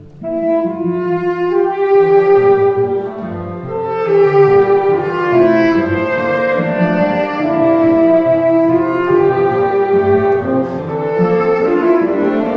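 Tenor saxophone with a chamber ensemble of violin, cello, French horn and clarinets playing a chamber concerto, with long held notes in several voices. The ensemble comes back in together just after a brief lull at the very start.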